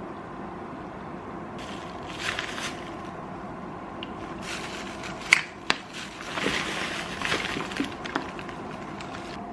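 Kitchen food-prep handling noises: bursts of crinkling and rustling, with two sharp clicks a little after five seconds in, over a faint steady hum.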